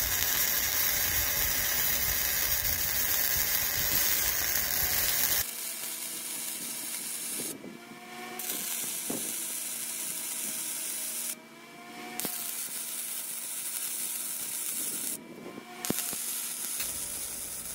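Flux-core MIG welding with a Titanium MIG 140: the arc crackles and hisses in one long run of about five seconds, then in several shorter runs separated by brief pauses.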